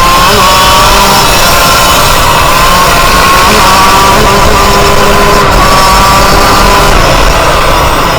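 Yamaha YZ125's two-stroke single-cylinder engine running hard off-road, its pitch climbing and dropping several times.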